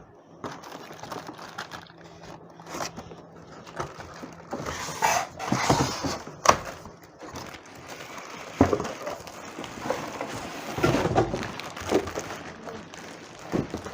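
Packaging being handled while a keyboard is unboxed: irregular rustling and crinkling with scattered clicks and knocks, louder in a few short bursts.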